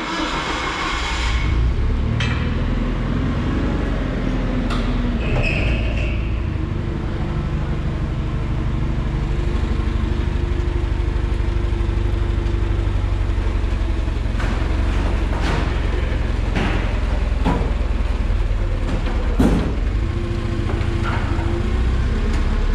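Nissan forklift's engine running steadily as it lifts a truck's steel utility body, with several sharp knocks in the second half.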